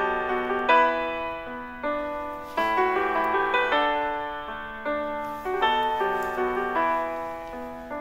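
Background piano music: a gentle melody of struck notes, each ringing and fading, several sounding together.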